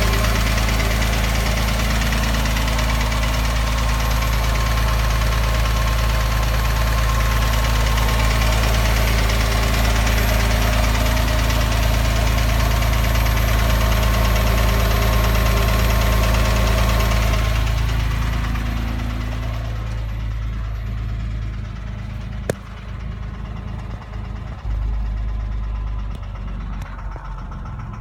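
2006 Porsche 997 3.8 flat-six engine idling steadily with a knocking noise, which the owner puts down to piston slap or the hydraulic lifters. About 18 seconds in the sound grows quieter and thinner, and a single sharp click comes a few seconds later.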